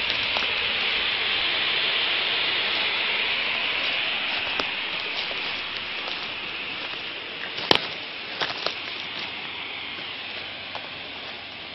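Smoke grenade burning and pouring out smoke with a steady, high hiss that slowly fades, with a few scattered crackles. A single sharp click about two-thirds of the way through is the loudest moment.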